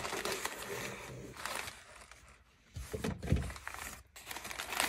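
Cardboard shipping box and crumpled packing paper being handled: paper rustling, with a soft thump about three seconds in.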